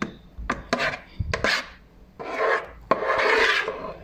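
Spatula scraping cream-cheese filling out of a mixing bowl: a few short knocks against the bowl, then two longer scraping strokes in the second half.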